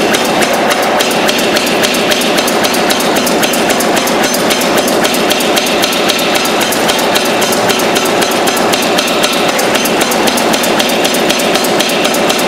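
Power hammer striking a red-hot bar of railroad-car spring steel held in tongs, a rapid, steady run of blows with no break.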